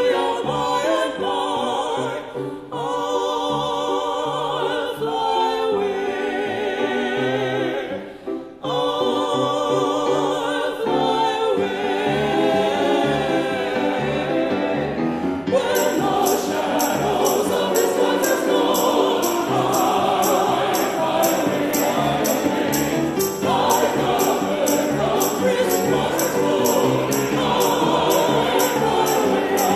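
Mixed church choir singing an anthem with piano accompaniment. There is a short break about eight seconds in, and the singing grows fuller about halfway through.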